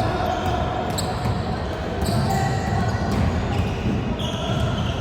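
Basketball game noise in a gym: a ball bouncing on the court amid steady hall noise, with short sharp knocks scattered through.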